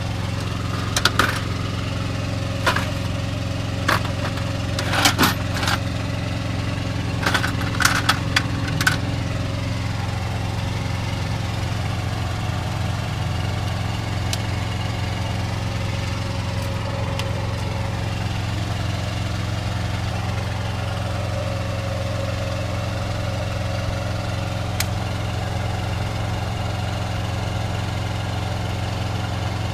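Vehicle engine idling with a steady low hum. Over it, in the first several seconds, a scatter of clicks and knocks from a coil of plastic air line tubing being handled.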